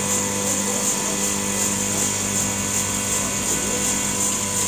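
A motor running steadily, with a low hum and a high hiss that pulses about three times a second.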